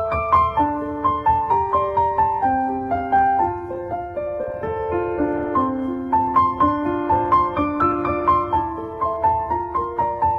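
Background music: a gentle piano melody of flowing, evenly paced notes.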